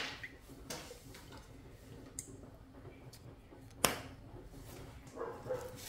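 Light clicks and knocks of a plastic-capped sesame oil bottle being closed and set down, the sharpest a single click about four seconds in. A short whine follows near the end.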